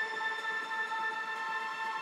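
Background music: a held chord of steady tones with no beat.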